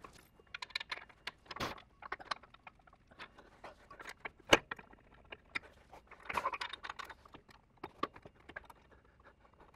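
Scattered light metallic clinks and knocks of a bolt, spacer and flanged nuts being handled as a winch is hung on its mount, with one sharper knock about halfway through.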